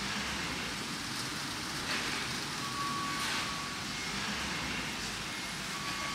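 Steady background noise of brewery machinery, with a faint high beep that comes in about halfway through and again near the end.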